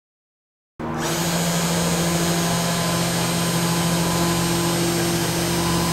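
Spindle motor of a 3020 CNC engraving mill running at a steady speed: a steady whirring hum over a hiss, starting abruptly about a second in.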